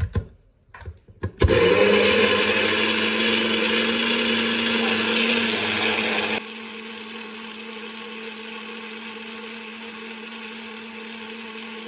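NutriBullet personal blender: a few knocks as the cup is pressed onto the base, then the motor starts about a second and a half in with a steady whine, blending coriander and mint leaves with water into a chutney. About six seconds in the sound drops suddenly in level, and the motor keeps running steadily until it cuts off at the end.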